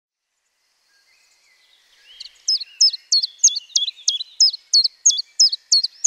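A songbird singing a run of identical short, high-pitched notes, each dropping in steps, repeated about three times a second. It fades in over the first two seconds.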